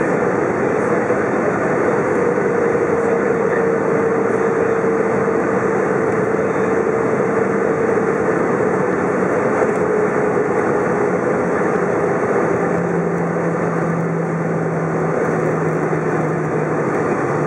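Airbus A320 cabin noise from a seat over the wing: a steady rush of airflow and engine drone. An engine tone slowly sinks in pitch, and a lower hum drops a step about twelve seconds in.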